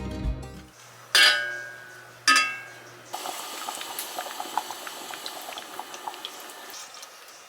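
Two ringing clinks of kitchenware, then water in a pot heating on the stove with a steady hiss and many small pops as it comes to the boil.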